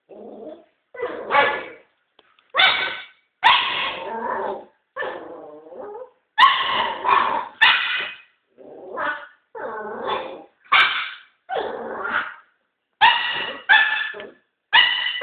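Small puppy barking over and over in short bursts about a second apart, mixing high yappy barks with lower growls.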